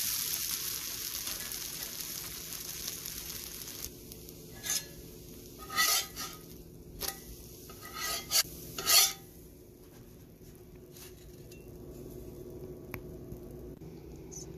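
Dosa sizzling on a hot pan, the hiss fading over the first few seconds, followed by a spatula scraping against the pan in about seven short strokes.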